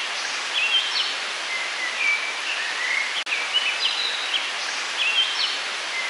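Steady rush of a small mountain river, with birds chirping in short repeated phrases over it; the sound drops out for an instant a little past the middle.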